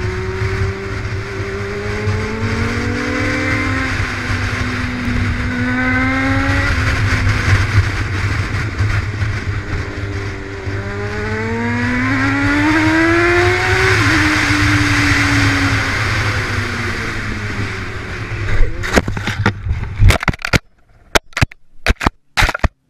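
Motorcycle engine accelerating and easing off, its pitch rising through the gears and falling again, under heavy wind noise. About 19 seconds in it gives way to a run of sharp knocks and scrapes as the bike crashes off the road. The engine goes silent and only separate loud knocks follow.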